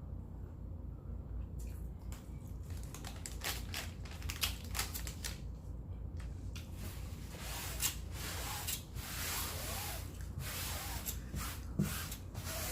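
Close-miked eating sounds: chewing and wet mouth smacking, a quick run of many small clicks. They start after about a second and a half and grow busier past the middle.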